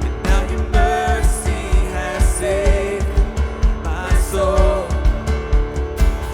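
Live worship band playing with voices singing over drums, guitar and keyboards, driven by a steady kick-drum beat.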